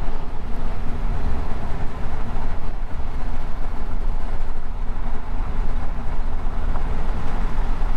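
Chevrolet Silverado pickup carrying a slide-in camper driving on a gravel road: steady rumble of tyres on gravel and engine running.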